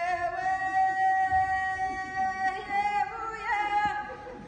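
A woman's voice singing one long held note at a steady pitch, lifting briefly near the end before it fades out.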